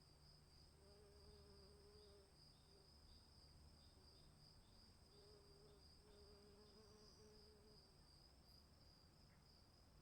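Faint storm-free ambience: insects, crickets or similar, trilling steadily at a high pitch, with short repeated chirps and an on-and-off lower tone over a low background rumble.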